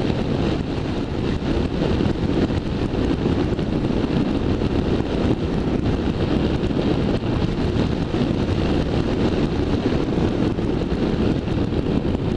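Steady wind noise on the microphone of a bike-mounted camera, over the BMW F650ST Funduro's single-cylinder engine running evenly while riding.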